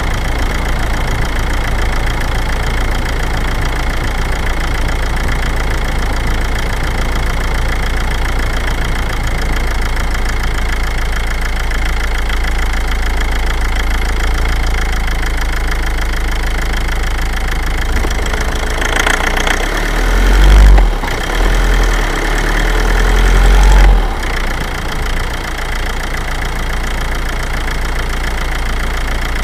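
Toyota Avensis 1AD-FTV 2.0-litre four-cylinder common-rail diesel running steadily. From about 19 s in, under load at low revs, it knocks and grows louder and deeper for about five seconds, then settles back to a steady run.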